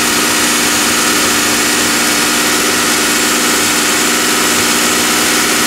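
DeLorean DMC-12's PRV V6 engine idling steadily, heard up close in the open engine bay as it warms up.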